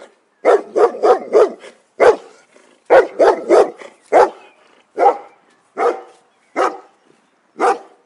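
A dog barking repeatedly: two quick runs of three or four barks, then single barks slowing to about one a second.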